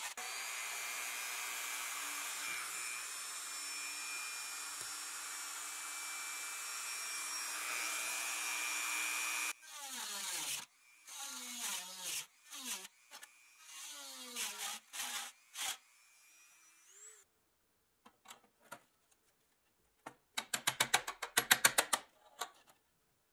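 Dremel rotary tool grinding steadily against rusty pressed steel, then running in short bursts that each fall in pitch as the tool slows. Near the end comes a quick run of loud, sharp metal taps, about ten a second, as a punch or chisel is worked against the steel.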